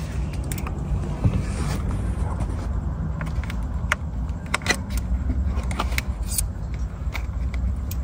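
Scattered light clicks and plastic rattles as the trim, clips and wiring on the back of a steering wheel are handled and pried with a screwdriver, over a steady low hum.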